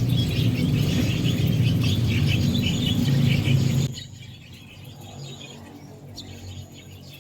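A flock of Javan mynas chattering with many overlapping chirps. A loud low rumble runs beneath them and cuts off about four seconds in, after which the chirping continues more quietly.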